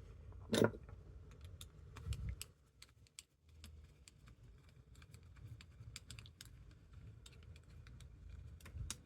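Faint, irregular light clicks and taps of a screwdriver and small metal parts as the chainsaw carburetor's cover plate is screwed back on.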